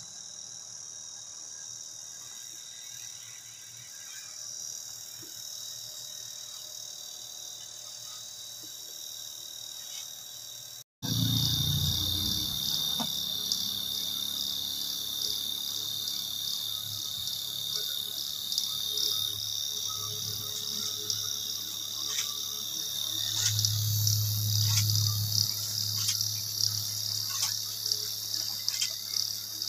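A steady, high-pitched chorus of chirring insects, growing louder after a cut about eleven seconds in, with a brief low hum about three-quarters of the way through.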